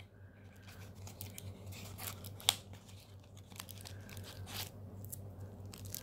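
Small cardboard product box being slid open and its packaging handled: rustling, scraping and crinkling of cardboard and plastic, with scattered clicks. The sharpest click comes about two and a half seconds in.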